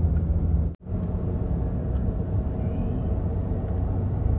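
Steady low engine and road rumble heard from inside a moving car. It cuts out for an instant a little under a second in, then carries on.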